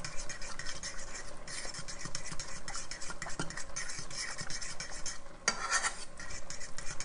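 A spoon stirring a thickening cheese sauce in a small saucepan, scraping and clicking rapidly and unevenly against the pan.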